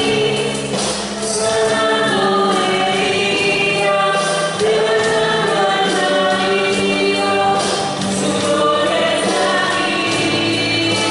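Group of voices singing a Christian hymn together in long held notes.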